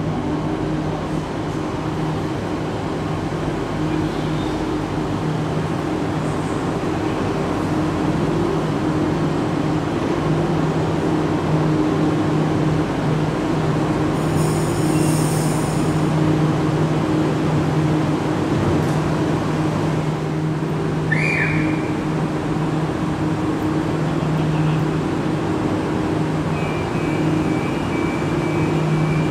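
Sydney Trains Oscar (H set) double-deck electric train pulling into an underground platform and standing, with a steady electric hum throughout. A brief squeal comes a little after 20 s, and near the end a steady high beeping tone sounds, the door-closing warning.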